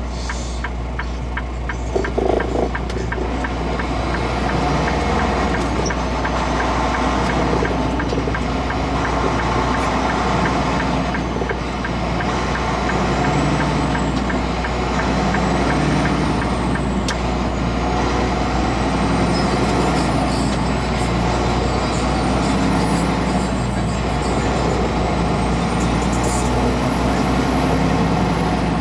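Semi-truck engine running with a steady low drone.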